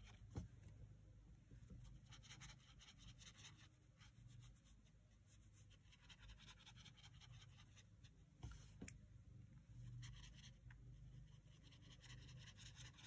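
Faint strokes of a water brush pen's tip on paper, blending out colour swatches, in short groups every couple of seconds, with two light clicks, one near the start and one about two thirds of the way through.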